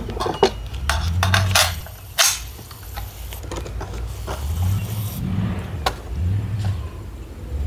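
Sharp metallic clicks and knocks of an AR-15 rifle being handled, over a low, uneven rumble.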